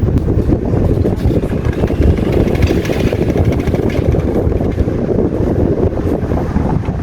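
Qualitas 60 cm wall fan running, its airflow buffeting the microphone as a steady low rumble.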